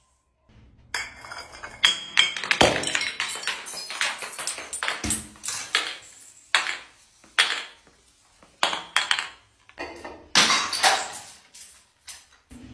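Glass bottles hitting stone stairs, clinking and shattering: a rapid series of sharp impacts and breaking glass, after a brief gap at the start.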